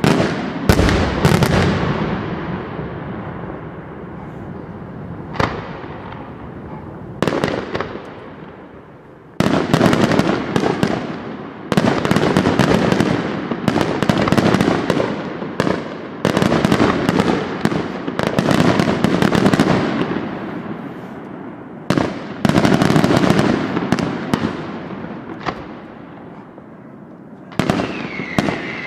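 Aerial firework shells bursting in quick succession: sharp bangs, each with a long echoing tail, and dense crackling in clusters every couple of seconds. Near the end a wavering whistle joins in.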